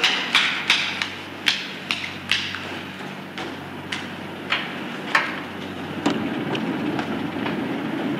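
Hurried hard-soled footsteps clacking on a hard floor, about three steps a second at first, then slower and more spaced out, over a steady low hum.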